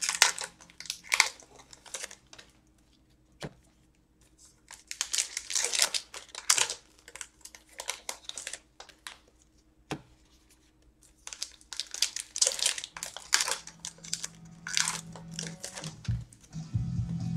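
Foil wrappers of Upper Deck hockey card packs being torn open and crinkled by hand, in several spells of crinkling with quieter gaps between.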